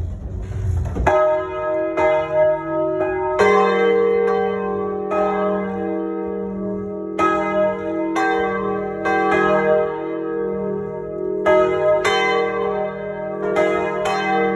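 Three swinging church bells of about 1000, 750 and 500 kg ringing together in full peal, heard up close in the belfry: clapper strikes at uneven intervals, each leaving long ringing tones that overlap. The strikes begin about a second in, after a low rumble.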